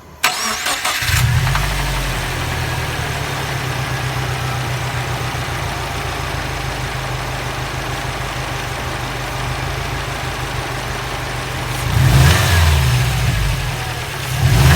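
2011 Subaru WRX's turbocharged 2.5-litre flat-four started, catching within the first second, then idling steadily and revved twice near the end. It runs with rod knock, a worn connecting-rod bearing.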